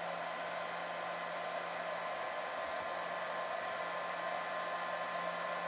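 Electric heat gun running steadily, blowing hot air at a small carburetor body: an even rushing blow with a faint steady hum underneath.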